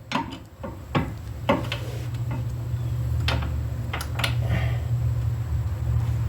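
Metal hand tools clinking while a socket and socket adapters are worked onto the hub bolts with a breaker bar: a handful of sharp, irregularly spaced clicks over a steady low hum.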